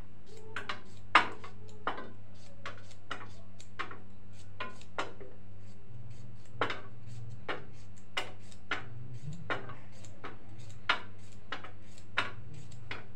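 Sword beans being cut by hand over a steel plate, the pieces dropping onto it: irregular sharp clicks and clinks, about two a second, the loudest about a second in. A low steady hum runs underneath.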